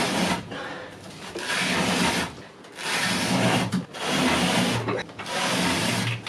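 Rope being hauled hand over hand through a block in repeated rasping strokes, about one a second.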